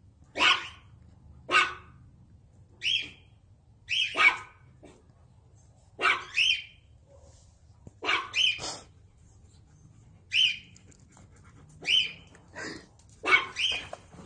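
A dog barking over and over: short, sharp barks, often two or three close together, about one a second.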